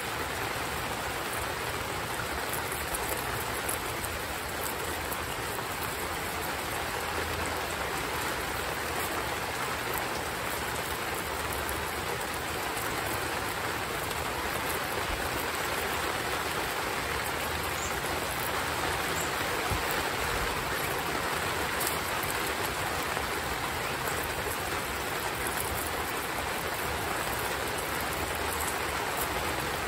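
Heavy rain falling in a steady hiss.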